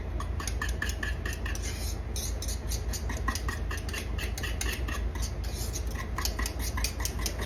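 A wire whisk stirring thick mashed potatoes, tapping and clicking irregularly against the bowl several times a second as it breaks up lumps.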